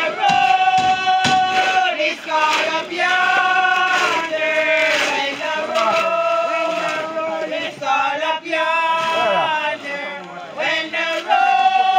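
A group of men and women singing a hymn together in slow, long-held notes, with a couple of sharp knocks near the start.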